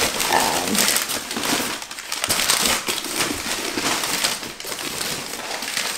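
Crumpled newspaper packing paper crackling and rustling as it is pulled and pushed around inside a cardboard box. The crackling is dense and continuous.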